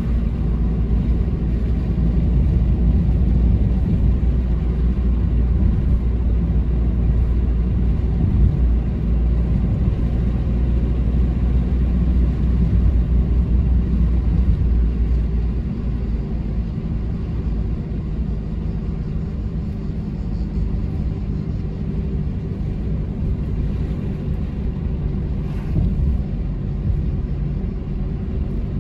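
Car on the move: a steady low rumble of engine and tyres on the road, easing slightly about halfway through.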